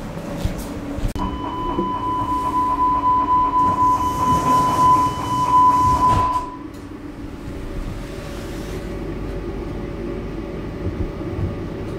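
Door-closing warning of a DT4 metro car: a steady beeping tone, pulsing about three times a second, with a hiss of the doors as they shut. It stops abruptly after about five seconds, leaving the train's steady low hum.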